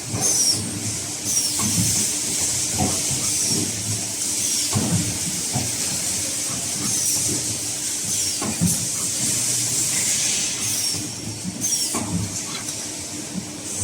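CNC pipe bending machine running: a steady motor hum and hiss, with irregular clunks and short high falling chirps every second or two as the machine works.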